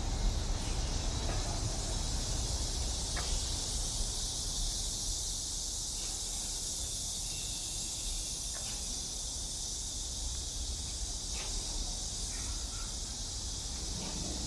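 Steady high-pitched drone of insects in summer, with a low rumble underneath.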